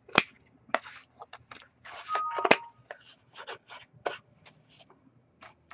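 Sharp scissors snipping through loops of yarn wrapped around a piece of cardboard, in a run of short, irregular cuts a few per second, with a louder, longer cut about two seconds in.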